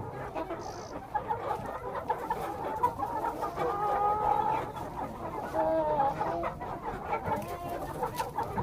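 A flock of desi (village-breed) chickens clucking, many birds calling over one another, with a few clearer calls standing out near the middle.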